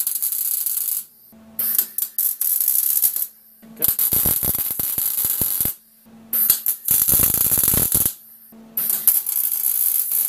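Longevity MigWeld 140 MIG welder running .030" ER70S-6 wire under C25 gas, tack-welding a steel roll-cage tube in place. The arc crackles and hisses in five bursts of one to two seconds each, with short pauses between and a low hum under each burst.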